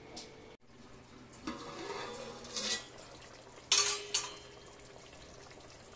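Steel lid knocking against a metal cooking pot: a few soft knocks, then a sharp clank with a short ring nearly four seconds in and a lighter clink just after.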